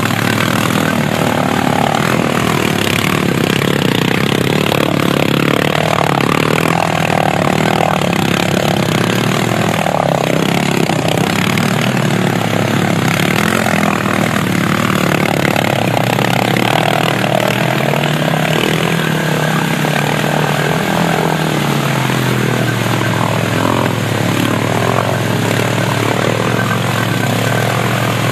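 Honda TRX700XX ATV's single-cylinder four-stroke engine running, its pitch rising and falling with the throttle and dropping back about three-quarters through.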